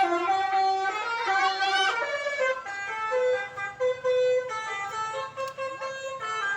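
Indonesian "telolet" musical bus horn playing a tune of held notes that step from pitch to pitch every half second or so, sometimes two notes together. A brief swooping sound comes about a second and a half in.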